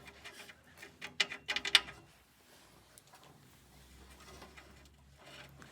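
Small metal parts clicking and scraping as the nuts and connectors on a vacuum press furnace's heating element are worked loose by hand: a few short clicks in the first two seconds, the loudest about a second and a half in, then a faint steady hum.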